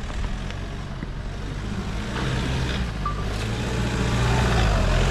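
Toyota Fortuner's engine pulling under load as the SUV climbs a sandy slope in two-wheel drive (4x2), growing louder from about two seconds in as it comes closer up the climb.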